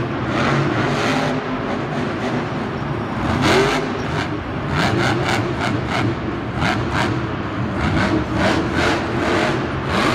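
Full-size Monster Jam trucks' supercharged V8 engines running and revving on the arena floor, with a run of short, quick revs about two a second in the second half.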